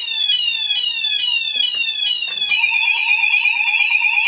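Fire alarm sounders sounding after the manual call point has been set off: a repeating falling sweep tone, joined about two and a half seconds in by a fast warbling two-pitch tone.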